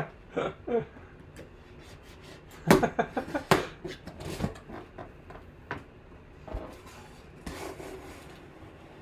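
Utility knife slitting the packing tape along the edge of a cardboard box: a quick run of scratchy cuts about three seconds in, a few knocks, then the cardboard lid scraping as it is lifted open near the end.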